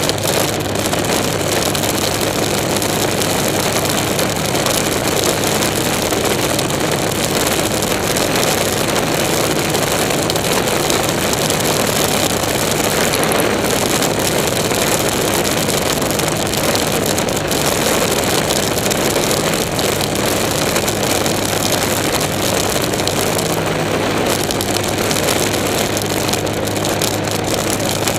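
Off-road race car driving hard across desert terrain, heard from inside the cockpit: engine, drivetrain and rough-ground noise run together in a loud, steady din.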